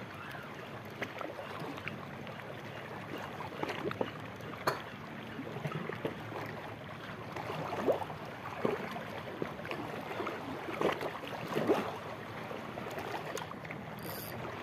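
Shallow sea water lapping and sloshing against shoreline rocks: a steady wash with a few brief splashes scattered through.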